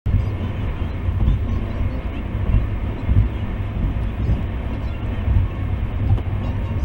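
Car driving along a road: a steady low rumble of road and engine noise that rises and falls slightly.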